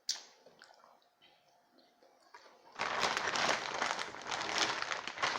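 A sharp click, a few faint taps, then from about three seconds in a loud, dense crinkling and rustling of packaging.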